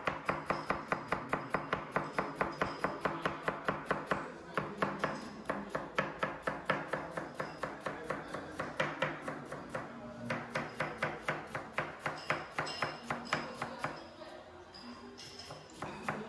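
Kitchen knife chopping red cabbage into fine shreds on a cutting board: quick, even knocks of the blade on the board at about four a second, pausing briefly a few times.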